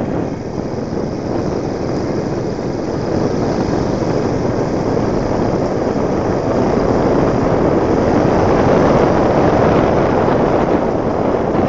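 A motorbike running at speed on a dirt track, heard from the rider's handlebars as a steady rushing noise of wind on the microphone over the engine. It grows a little louder about two-thirds of the way in.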